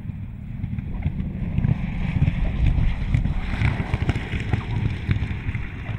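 Curtiss-Wright P-40 Kittyhawk's V-12 piston engine running at low power with an uneven, crackling burble as the fighter rolls out on landing. It grows louder about a second and a half in as the plane passes, then eases slightly near the end.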